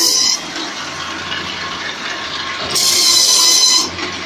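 Bamboo toothpick-processing machine running with a steady motor hum, broken by two loud stretches of high hissing rasp as bamboo sticks pass through its rollers. The first dies away about half a second in; the second starts nearly three seconds in and lasts a little over a second.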